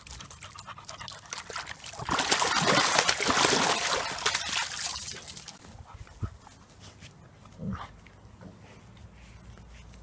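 Water splashing and sloshing as a dog moves in a plastic paddling pool, loudest for a few seconds and dying away about halfway through; near the end, a short dog whine.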